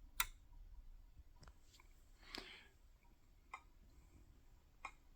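A handful of light, sharp clicks and taps at irregular intervals, one slightly longer and scratchier about two and a half seconds in: fingertip taps on a diagnostic tablet's touchscreen while working through its menus, over faint room hiss.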